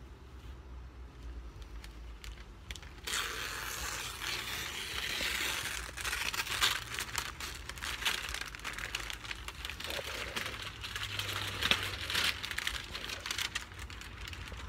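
Masking paper and painter's tape being peeled off a freshly painted surfboard and crumpled up: continuous crinkling and rustling of paper, getting much louder about three seconds in.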